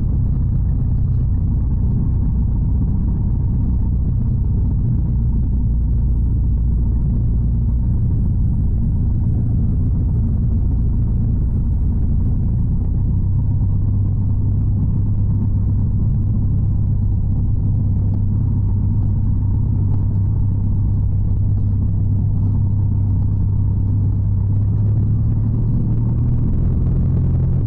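Cessna 140's four-cylinder air-cooled engine and propeller, a steady low drone heard inside the cockpit. About halfway through, the low note steps up slightly.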